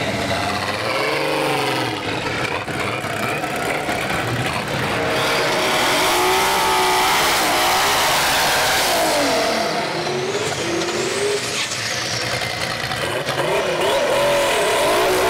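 Twin turbocharged VR6 engines of a twin-engine Volkswagen Golf drag car revving, their pitch rising and falling again and again. A high whine rises and falls about ten seconds in.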